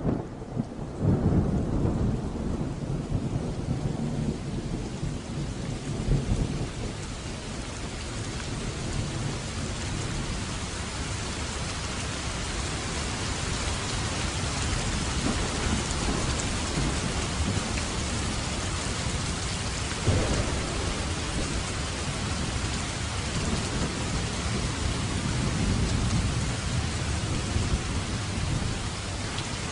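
Steady heavy rain with rolling thunder: low rumbles swell in the first couple of seconds, again around six seconds in, briefly near two-thirds of the way through, and once more toward the end.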